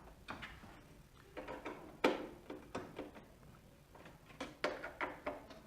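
Screwdriver tightening the screws that hold a cutting plotter's side cap on: irregular small clicks and ticks, the sharpest about two seconds in and a quick run of them near the end.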